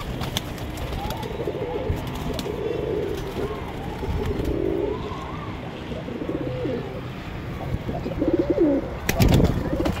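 Domestic pigeons cooing over and over, several rising-and-falling coos overlapping. A loud thump comes near the end.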